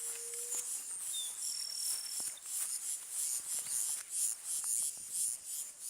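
Chorus of chirping insects, a high shrill band pulsing about three times a second. A single thin, steady, high bird whistle sounds briefly about one and a half seconds in.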